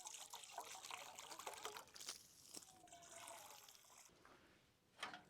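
Faint trickle of water being poured into an animal's drinking bowl, stopping about four seconds in. A short sharp knock comes just before the end.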